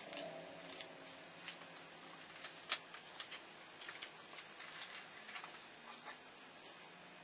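Hands handling small plastic Lego pieces and a plastic parts bag: irregular crinkles and sharp plastic clicks, the loudest about two and a half seconds in.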